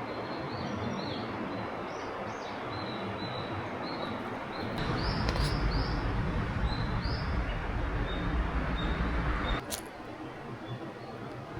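Small birds chirping in short repeated calls over a steady outdoor hiss. About five seconds in a louder low rumble comes in, and it cuts off sharply near ten seconds.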